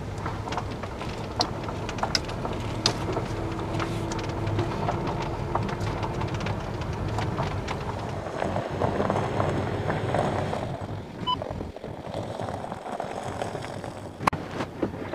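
Van on the move: steady engine and road rumble with scattered clicks and rattles, the sound shifting about eleven seconds in.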